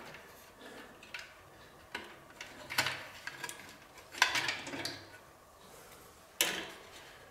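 A perforated mesh panel being handled and pressed into a PC case's plastic front bezel: about five light clicks and knocks spread out, the sharpest near the end.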